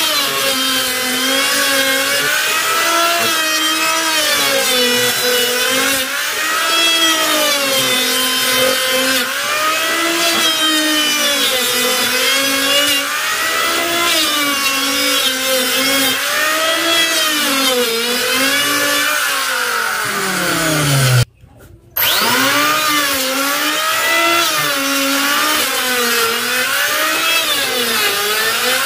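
Electric hand planer motor whining as it planes wood, its pitch dipping every couple of seconds as the blades bite and rising again between cuts. About two-thirds of the way through the motor winds down and stops, then starts up again with a rising whine less than a second later.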